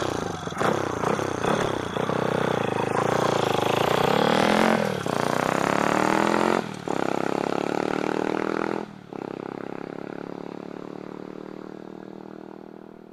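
Monkey-style minibike's single-cylinder four-stroke engine accelerating hard, revving up through the gears with short breaks at each shift. The note drops in pitch as it passes at about 95 km/h, then fades as the bike pulls away.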